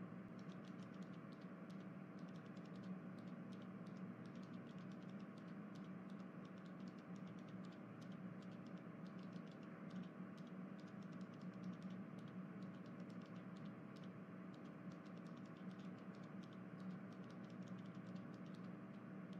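Faint, rapid, irregular clicking over a low steady hum.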